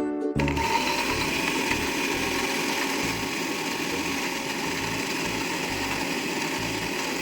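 Electric kitchen blender running steadily, starting just under half a second in.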